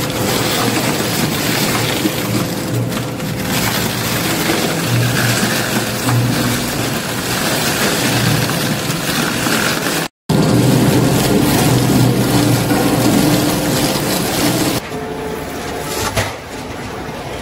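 Twin-shaft tire shredder running loud and steady as its hooked blades tear a whole tire apart, with a low hum under the noise. The sound cuts out for a moment about ten seconds in and turns quieter near the end.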